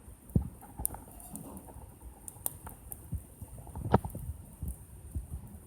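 Wood fire crackling: irregular sharp pops and low knocks, the loudest pop about four seconds in.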